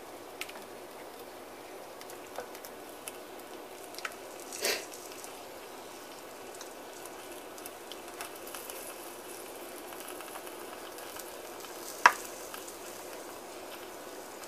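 Ladle scooping thick tomato sauce from a bowl and spooning it over meatballs in a slow-cooker crock: soft wet stirring and plopping sounds with scattered light clicks. A brief louder scrape comes just under five seconds in, and one sharp clink about twelve seconds in.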